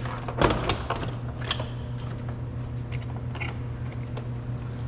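Flathead screwdriver prying at a plastic door trim piece, giving a few sharp clicks and scrapes, the loudest about half a second in, over a steady low hum.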